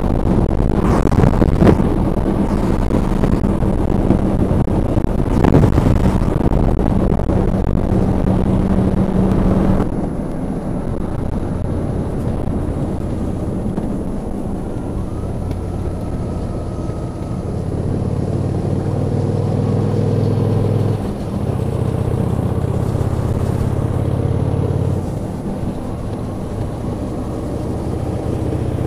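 Motorcycle engine running on the move, with strong wind noise on the microphone for the first ten seconds. After a sudden cut the wind drops, and the engine note steps up and down a few times as the throttle and gears change.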